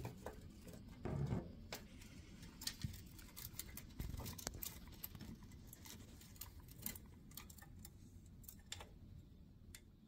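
A baby chipmunk's claws clicking and scrabbling on a clear plastic tube as it climbs through it: faint, irregular ticks, with a louder scuffle about a second in.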